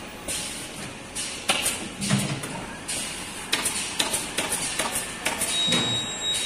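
Irregular knocks and clicks of work on a factory floor over a steady noisy background. Near the end a steady high-pitched electronic buzzer tone starts and keeps going.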